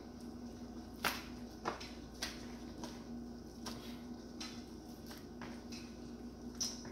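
Hands tossing breaded oyster mushrooms in a plastic mixing bowl: quiet rustling with scattered light taps against the bowl. A faint steady hum runs underneath.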